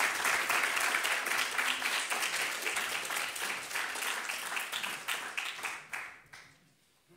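An audience applauding, a dense patter of many hands clapping that dies away about six seconds in.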